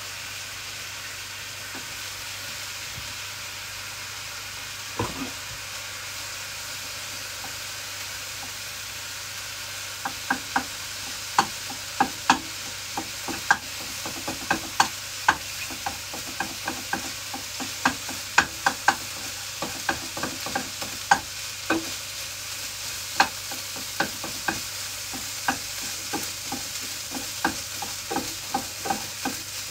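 Fried rice sizzling in a frying pan with a steady hiss, and a knock about five seconds in. From about ten seconds in, a wooden spatula clacks against the pan again and again as the rice is stirred and broken up.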